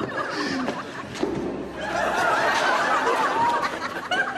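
Audience laughter, swelling into many voices laughing together about two seconds in.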